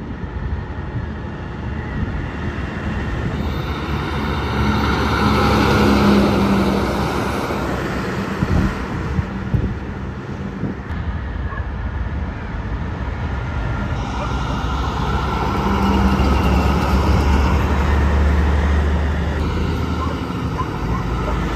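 Trucks driving past, their engine and road noise swelling and fading twice: loudest about six seconds in and again around sixteen to eighteen seconds in. A couple of short knocks come about nine seconds in.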